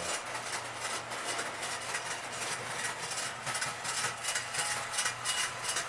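Electric toy train running slowly around tinplate track: a steady motor whir and hum with the light rattle of its wheels on the rails.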